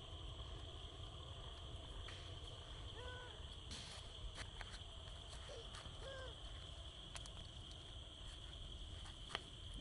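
Faint outdoor ambience: a steady high insect drone, with two short soft hooting calls about three and six seconds in and a few light clicks.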